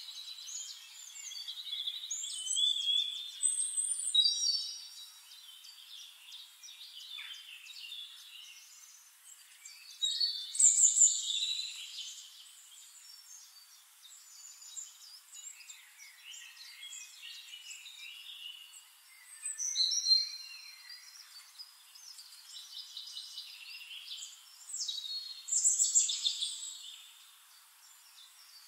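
Songbirds singing: high chirps and trills, with louder phrases every few seconds and quieter chirping between.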